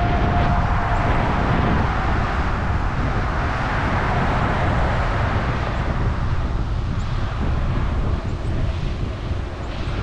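Steady rushing wind noise buffeting the microphone, with a faint whine that fades out about a second in.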